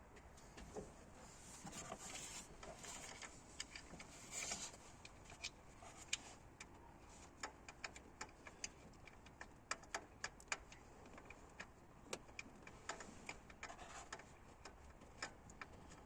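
Light, irregular clicks and clinks, as of hand tools handled against metal during car repair work, with a couple of short hissing rustles in the first few seconds.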